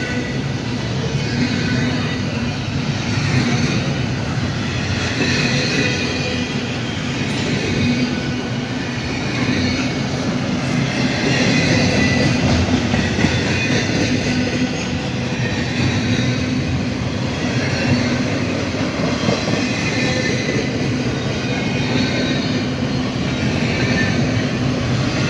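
Double-stack intermodal container train rolling past at close range: a steady rumble and clatter of steel wheels on rail, with high-pitched wheel squeal that comes and goes.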